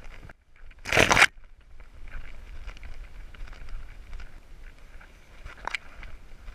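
A dog running through brush and tall grass, heard from a camera on its harness: leaves and stems brushing and scraping past in a steady rustle. About a second in comes a loud, rough rush of rubbing noise lasting half a second, and a sharp click near the end.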